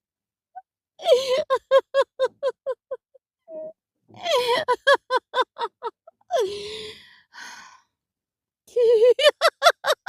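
A person's voice laughing in three runs of quick 'ha-ha-ha' pulses, about six a second, each run fading away. Between the second and third runs comes a long sigh falling in pitch, then a breath.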